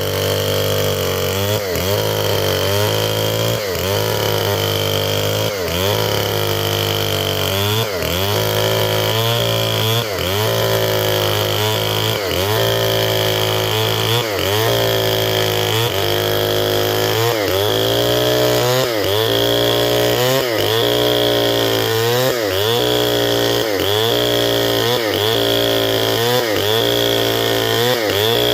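Stihl 070, a large two-stroke chainsaw, running at high revs while ripping a log lengthwise into a beam, its pitch dipping briefly over and over, more than once a second.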